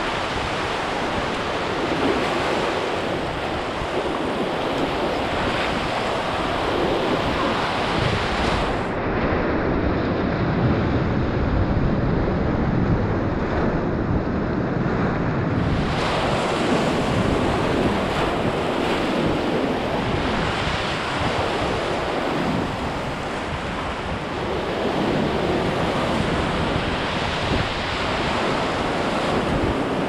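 Whitewater rapid in a river canyon: a steady, dense rush of churning water, duller for a few seconds in the middle.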